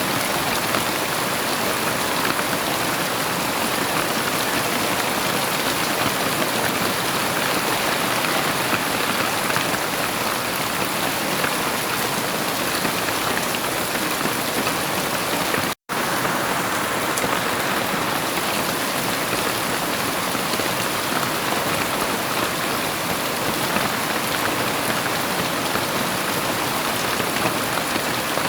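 Heavy rain falling steadily, a dense, even hiss. The sound cuts out completely for a split second about sixteen seconds in.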